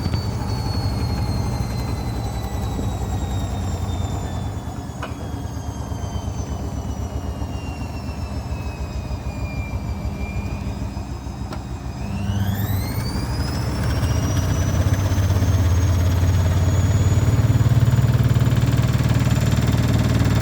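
Fagor washing machine's drum motor spinning a load of damp towels, with a deep rumble throughout. Its high whine falls slowly as the drum slows, then about twelve seconds in it rises sharply as the drum ramps back up to speed, and the rumble grows louder.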